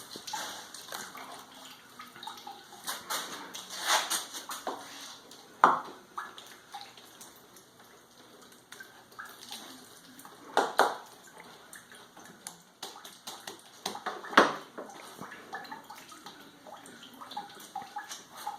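Wet paper-and-sawdust pulp sloshing and splashing in a bucket as it is worked by hand, with a few sharp knocks, three of them louder than the rest.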